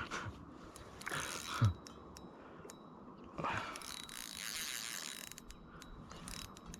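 Fishing reel clicking and whirring as a big snagged carp is played on light line.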